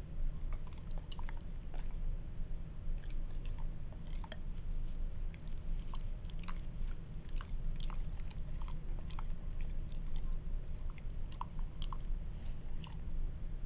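Labrador retriever chomping at a bit of carrot stuck in her mouth: irregular wet clicks and smacks of her jaws and tongue, several a second, over a steady low hum.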